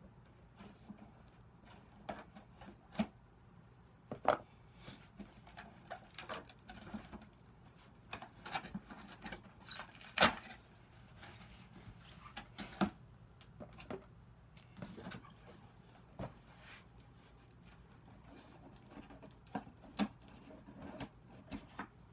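Cardboard shipping box being opened and handled: irregular scrapes, rustles and sharp taps, the sharpest about ten seconds in.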